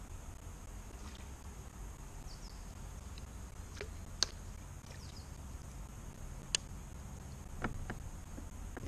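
A few sharp, isolated clicks from a fishing rod and reel being handled on a kayak, over a steady low rumble. The clicks come about four seconds in, again a couple of seconds later, and twice close together near the end as the rod is raised to cast.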